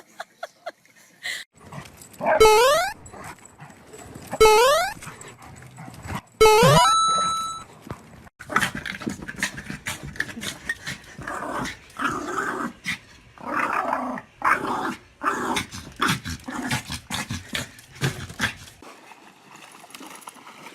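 Dogs play-fighting: three loud, short rising squeals about two seconds apart, then a long stretch of rough, broken growling that dies away near the end.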